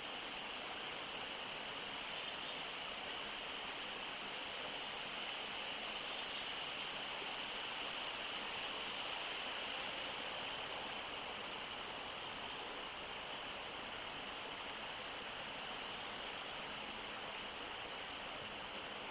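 Steady outdoor summer ambience: a constant high drone of insects, with faint, short, high chirps every second or so.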